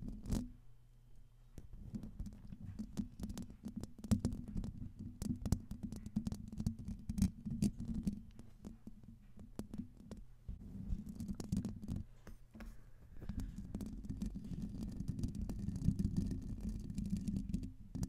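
Long fingernails and fingertips scratching and rubbing across the metal mesh grille of a Blue Yeti microphone, heard through that same mic: a low, rumbling scratch with many sharp nail clicks, easing off for brief moments now and then.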